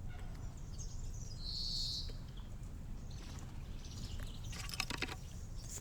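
A small bird at a garden feeder gives one short, high call about a second and a half in, and a few sharp taps or clicks come near the end, over a steady low background rumble.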